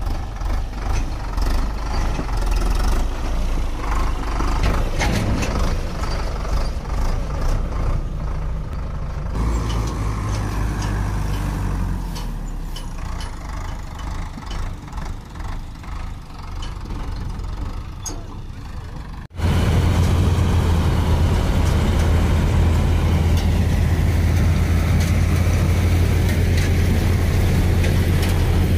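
Sonalika Tiger tractor's diesel engine running while the tractor pulls a trailer through mud, with scattered short knocks. About two-thirds of the way in there is a sudden cut to a louder, steadier engine hum.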